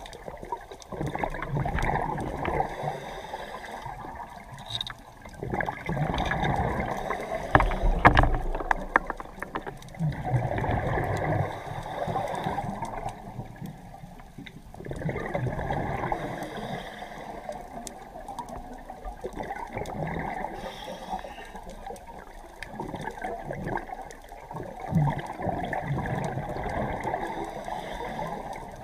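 Scuba diver's regulator breathing heard underwater: surges of bubbling exhaust bubbles alternating with quieter hissing stretches, in a slow, uneven cycle.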